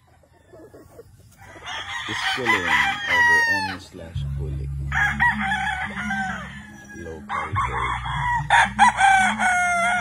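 Gamefowl roosters crowing three times in a row, each crow a couple of seconds long and falling in pitch at its end. A low steady hum runs underneath from about four seconds in.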